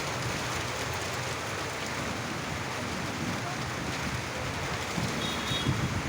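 Steady downpour of rain during a storm. Gusts of wind buffet the microphone near the end.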